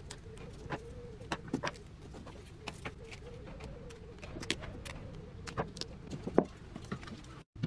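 Scissors snipping foam weather stripping, with scattered small clicks and taps as the cut pieces are handled and pressed into place as a gasket.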